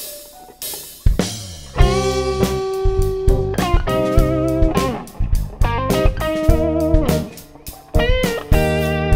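Blues-rock band playing an instrumental passage: electric guitar leads with bent, wavering notes over bass guitar and drum kit. After a hit about a second in, the full band comes in near two seconds in.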